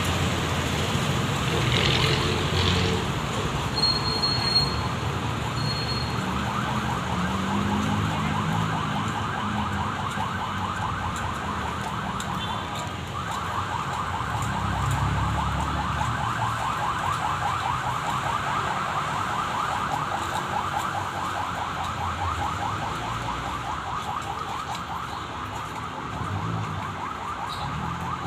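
Street traffic with engines running, and a fast-pulsing electronic alarm tone that starts a few seconds in and goes on through the rest.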